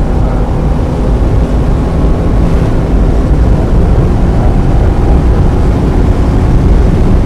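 Inside the cabin of a 1995 Mazda Miata driven on track on a wet day: its 1.8-litre four-cylinder engine running steadily under a heavy, even low rumble of road and wind noise.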